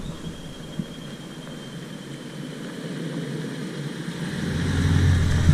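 Four-wheel-drive vehicle's engine driving up a steep track, faint at first and growing steadily louder over the last second or so as it comes closer.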